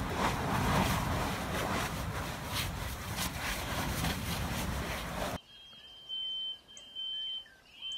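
Lava fountaining from an erupting fissure vent on Kīlauea's lower East Rift Zone: a loud, continuous rushing noise broken by many sharp pops and bursts. About five seconds in it cuts off to a much quieter background with a high tone sounding in short pulses about once a second and short chirps.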